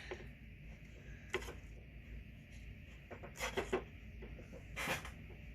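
Hands working a fuel line and small parts at the bench: a few brief rubbing and scraping handling sounds, about a second and a half in, around three and a half seconds, and again near five seconds, over a faint steady background.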